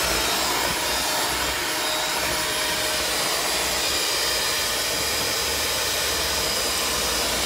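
Cuisinart 7-speed, 220-watt electric hand mixer running steadily, its beaters whirring through thick chocolate brownie batter in a stainless steel bowl.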